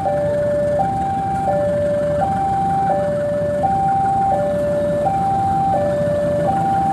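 Electronic two-tone warning alarm switching back and forth between a higher and a lower tone, each held about two-thirds of a second, over the low rumble of a diesel locomotive pulling in with its passenger train.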